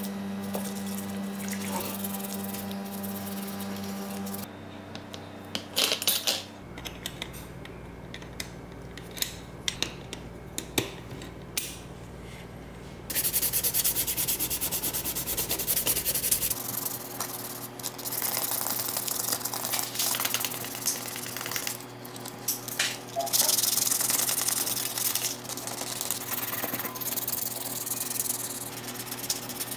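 Small part scrubbed with a toothbrush in soapy water at first, then scattered clicks of handling. From about halfway on, 800-grit sandpaper rubbed by hand over the stripped metal body of a 1:18 LaFerrari model car in rapid, repeated strokes; this sanding is the loudest part.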